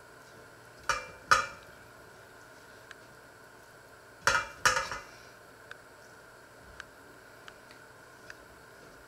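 Kitchenware clinking as pots and an enamel bowl are knocked by hand: two sharp, briefly ringing clinks about a second in, then a cluster of three or four more around four to five seconds in, followed by a few faint ticks.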